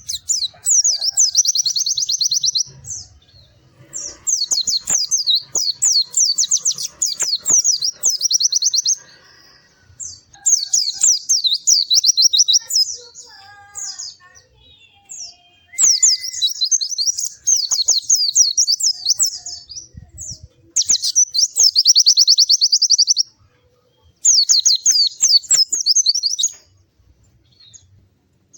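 A white-eye (pleci) singing in full song: six phrases of fast, high, twittering notes, each lasting a few seconds, with short pauses between them.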